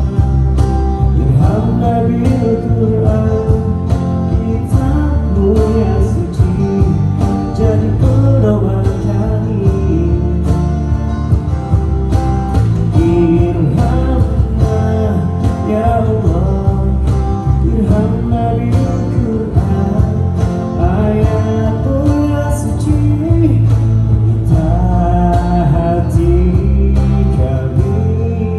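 Live band music: guitar over bass and a steady beat, in an instrumental stretch of the song.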